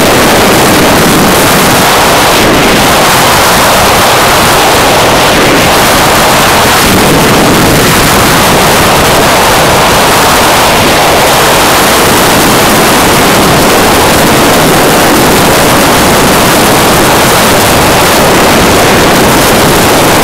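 Loud, steady rush of wind on the microphone of a motorcycle riding at highway speed, with the bike's road and engine noise buried in it.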